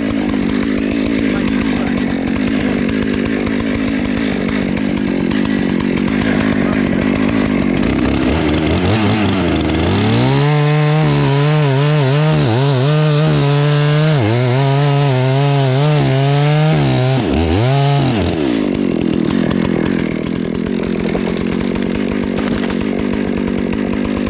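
Husqvarna 288XP two-stroke chainsaw idling, then revved up and held at full throttle for about eight seconds, its pitch dipping and recovering as it cuts wood, before dropping back to idle.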